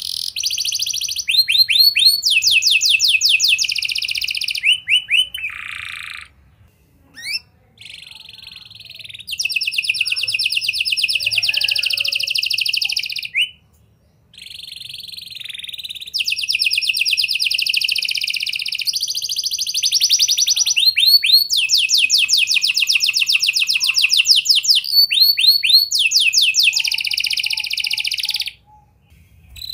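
Domestic canary in full song: long, fast trills of rapidly repeated notes, each roll at a different pitch, run together phrase after phrase. The song breaks off briefly about six seconds in, again near the middle, and near the end.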